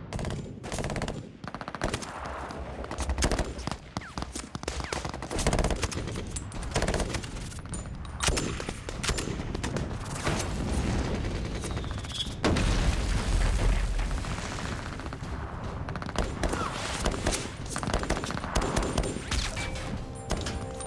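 Battle gunfire from a film soundtrack: rapid automatic-weapon bursts and shots, close together. A heavy low thud comes about twelve seconds in.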